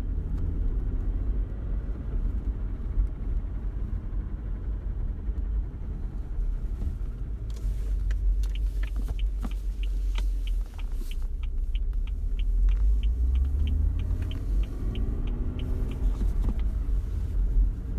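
A 2013 BMW 335xi being driven, heard from inside the cabin: a steady low road-and-engine rumble. About halfway through, a sharp, even ticking starts at about three ticks a second and runs for around eight seconds before stopping.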